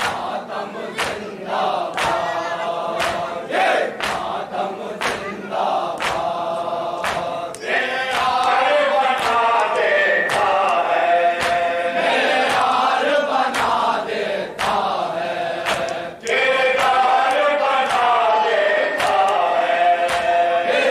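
A group of men chanting a noha in chorus through a microphone, with the sharp slaps of matam, hands beating on chests, about twice a second. About a third of the way in, the chanting swells louder and more sustained.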